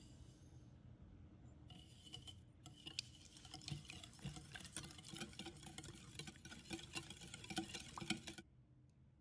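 A wire whisk beating egg, sugar and melted butter in a glass bowl, its wires clicking and tapping rapidly against the glass, then stopping near the end. Before the whisking there is a faint hiss of sugar being poured in.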